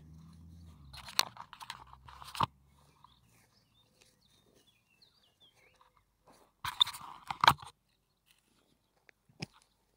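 Digging by hand into grassy turf: crunching and tearing of soil and grass roots. The loudest crunches come about a second in, near two and a half seconds, and in a cluster around seven seconds.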